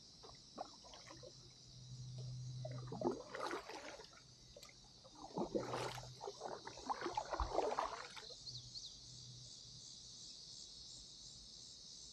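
Kayak paddle blades dipping and splashing in river water, several strokes over the first eight seconds or so, then they stop. A steady high buzz of insects runs underneath.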